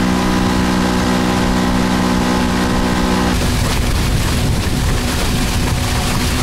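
Motorboat running at speed: a steady engine tone over a loud rush of wind and water. A little over three seconds in, the engine tone drops out and only the rushing noise is left.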